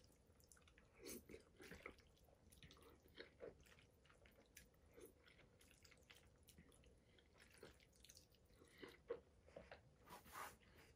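Faint chewing and eating of egg noodles in meat sauce, with scattered soft clicks and taps at irregular moments, a little stronger near the end.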